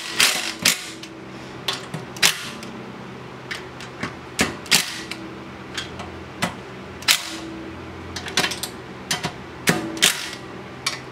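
Ryobi cordless driver with a socket spinning out the steel side-cover bolts of a Predator 212 engine in several short runs, among many sharp metallic clicks and clinks of the socket and loosened bolts.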